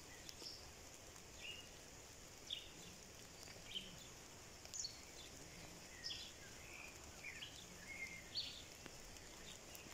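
Birds calling faintly with short, high chirps every second or so, some bending in pitch, over a soft steady hiss of light rain.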